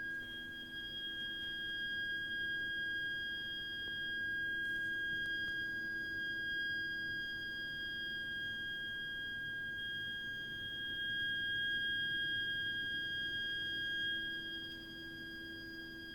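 Continuous high-pitched shriek from a heating system's heat interface unit (HIU) and its pipework: one steady whistling tone with a higher overtone over a low hum. It is an abnormal plumbing noise that goes on for hours, even when hot water and heating are not in use.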